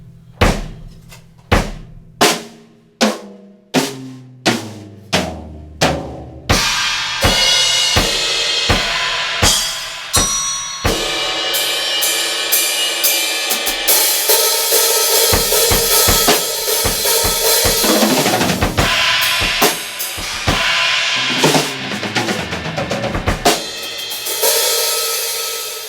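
Acoustic drum kit picked up as room sound by a pair of condenser microphones. It opens with single drum hits about every 0.6 seconds, then breaks into a full beat with kick, snare and ringing cymbals that stops sharply at the end.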